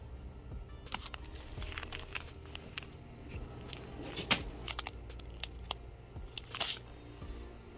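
Scattered clicks, rattles and plastic crinkles from a wire shopping cart and from a packet of seeds being handled off a shelf, over a steady low hum.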